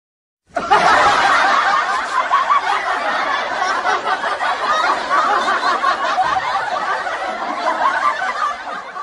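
Laughter, snickering and chuckling without a break, starting abruptly about half a second in after silence and running on steadily.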